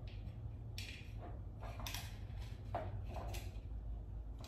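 Wiring being threaded through a fog light housing by hand: a handful of short, faint rustles and light scrapes over a steady low background hum.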